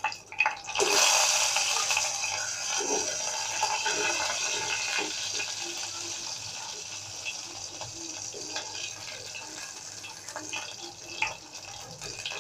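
Hot oil sizzling in a frying pan around pieces of fried hilsa fish. The sizzle sets in sharply about a second in and slowly fades, with a few light knocks and scrapes of a spatula against the pan as the pieces are lifted out.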